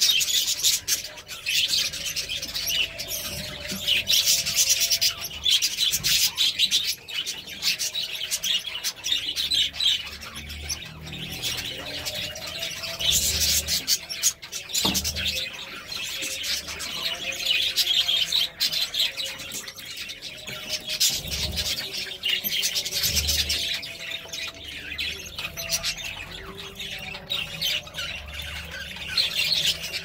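Budgerigars chirping and chattering nonstop in a dense, busy stream that swells louder in surges every few seconds.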